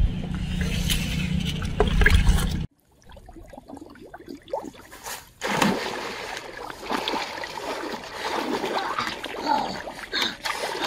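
Water sloshing and splashing as a person wades through a shallow, weed-choked pond, starting about five and a half seconds in. It is preceded by a steady low rumble that cuts off abruptly about three seconds in.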